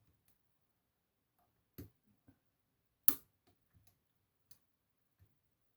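Lock pick working the pins of a DOM Plura lock under tension: irregular small metallic clicks, two louder ones about two and three seconds in with fainter ticks between. These are the tiny clicks of pins setting in a lock that gives little feedback.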